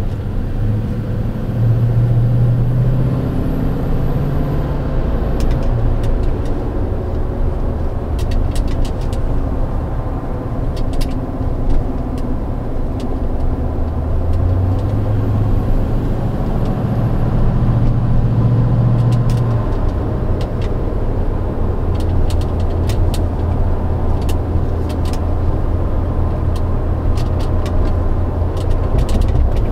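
Toyota Tundra 5.7 L V8 with a Rough Country cold air intake, heard from inside the cab while driving at light throttle, its engine note rising and falling with the throttle. A faint intake whistle at low throttle rides over the engine sound.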